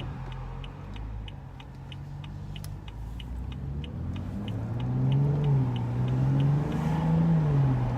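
Inside the cabin of a BMW M235i: the engine runs at low revs, then rises and falls in pitch twice as the car speeds up from about halfway through. A turn-signal indicator ticks steadily, about three and a half ticks a second.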